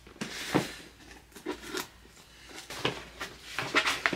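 Packaging being handled and opened: a rustle through about the first second, then a string of light clicks and taps.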